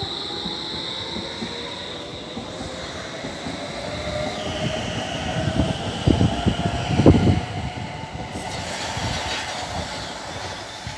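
Bombardier Movia C30 metro train pulling away from the platform: the electric traction motors whine and rise in pitch as it accelerates. About six to seven seconds in, a few loud clacks from the wheels running over rail joints.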